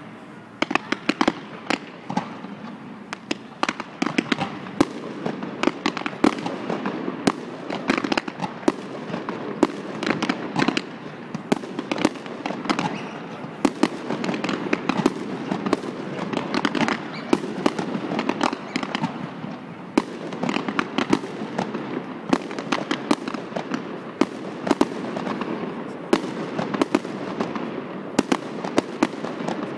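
Fireworks display: aerial shells bursting in a continuous barrage, a dense run of sharp bangs, several a second, over a steady noisy rumble.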